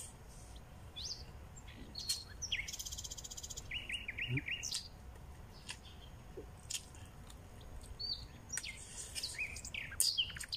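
Small birds chirping and calling, with short rising and falling chirps, a fast trill about three seconds in and a quick run of repeated notes just after; scattered soft clicks run through it over a low background rumble.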